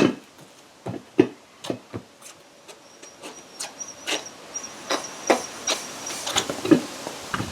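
A run of sharp knocks and rubs, about two to three a second, as a small lawn tractor tire is worked against its wheel rim at the bead. A faint thin high tone sounds for a few seconds in the middle.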